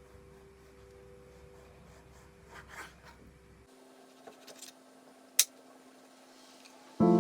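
Quiet room tone with a faint rustle, a few light ticks and one sharp click, then piano music starts near the end.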